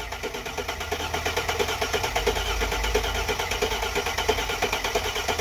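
A 2001 Mercedes C320's 3.2-litre V6 is cranked over on the starter at a steady, rapid rhythmic pulse without firing. It won't catch because its crankshaft position sensor has been left unplugged.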